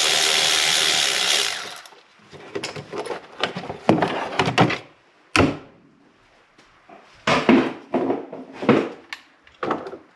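A power tool's motor runs steadily and stops about two seconds in. After that come scattered short clicks and knocks of tools and parts being handled.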